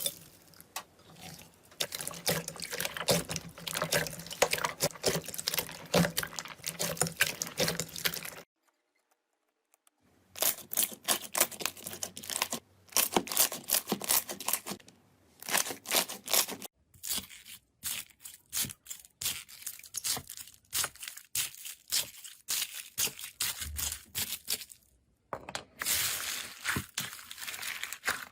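Hands squeezing, stretching and poking slime: quick sticky crackles and pops in close runs. It comes as several separate takes, with a silent break of about a second and a half roughly a third of the way in and shorter breaks later.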